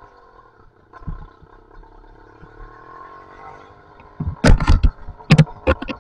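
Two-stroke YD85 engine with an expansion pipe running steadily at low revs. From about four and a half seconds in there is a burst of loud knocks and clatter.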